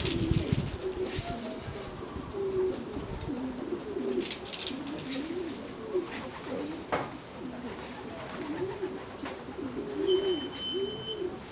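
Racing pigeons cooing in a loft, one low coo after another, with a few faint clicks and a short high beep about ten seconds in.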